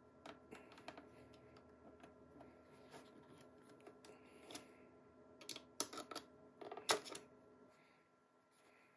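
Faint plastic clicks and scraping as the mounting plate of a UniFi AC Pro access point is twisted free of its housing, with a few sharper clicks about five and a half to seven seconds in.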